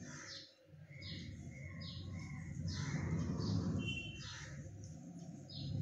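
A bird calling over and over, short calls roughly once a second, over a low steady rumble.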